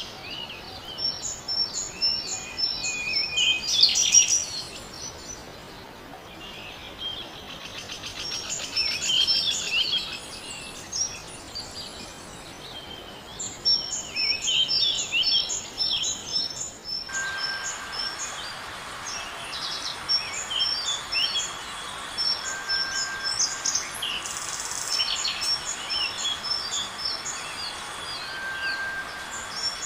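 Many birds chirping and calling over a background hiss, with quick, busy chirps throughout. A little past halfway the background suddenly grows louder, and a short steady whistle repeats a few times among the chirps.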